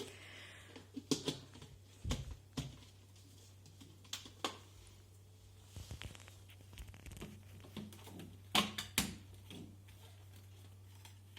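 Irregular plastic clicks and knocks from handling the cordless vacuum's dust bin and filter parts. There are several separate clicks, the loudest pair coming near the end.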